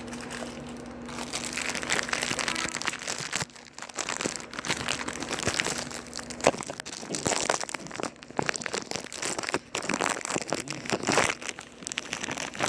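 Packaging crinkling and crackling as it is handled and unwrapped, with a dense run of quick irregular crackles that pauses briefly now and then.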